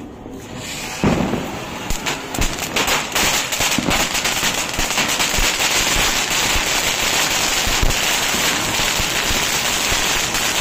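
Ground fountain firework catching about a second in, then spraying sparks with a loud, steady hiss and dense crackling.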